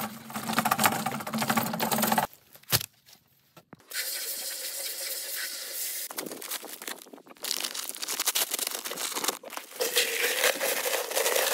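A portable cement mixer rattling as it is wheeled over rough ground, then water hissing from a hose spray nozzle into the empty mixer drum. Near the end, a paper bag of mix crinkles and rustles as it is torn and poured into the drum.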